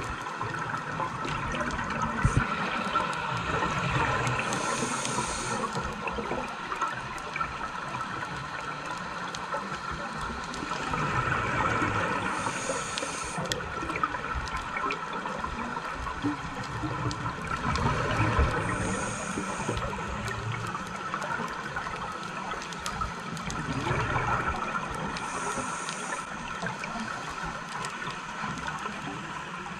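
Scuba diver breathing through a regulator underwater. A short hiss of an inhale comes about every six to seven seconds, with bubbling exhales between.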